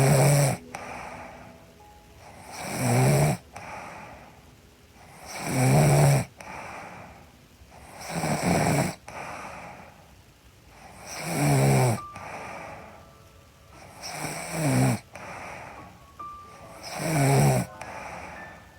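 A young woman snoring in her sleep: seven snores about three seconds apart, each swelling up and cutting off sharply, with a softer breath between them.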